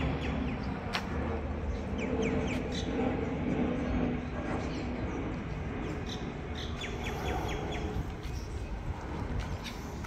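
Birds chirping in short, quick calls, with a rapid run of chirps about two-thirds of the way through, over a steady low rumble.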